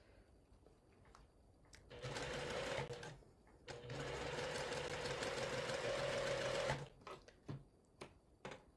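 Sewing machine stitching quilt pieces in two runs: a short burst about two seconds in, a brief stop, then a steady run of about three seconds. A few light clicks follow near the end.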